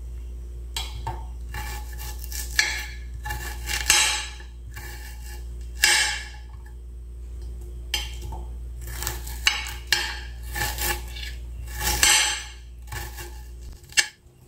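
Kitchen knife chopping an onion into small pieces on a cutting board: irregular knocks of the blade striking the board, a few of them louder.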